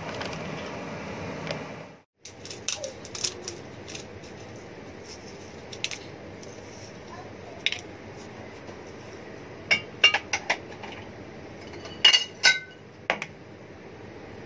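Scattered clinks and knocks of utensils against a stainless steel bowl and dishes, with a cluster of sharper ringing clinks around ten and twelve seconds in, over a steady hiss.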